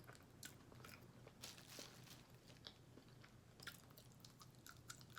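Faint chewing: scattered soft wet mouth clicks and smacks of someone eating seafood up close to the microphone.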